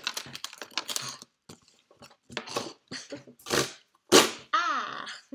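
Cardboard packaging being handled and opened by hand: a series of short crunchy rustles and scrapes, the loudest a sharp crunch about four seconds in. A brief wordless vocal sound follows near the end.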